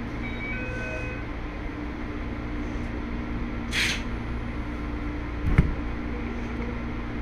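Electric commuter train standing at a station, its onboard equipment giving a steady hum. A short hiss of air comes about four seconds in, and a sharp clunk about a second and a half later.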